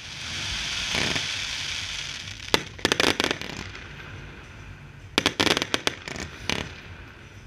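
Fireworks display: a steady rush of noise at first, then quick runs of sharp bangs from bursting shells about two and a half seconds in and again from about five seconds in.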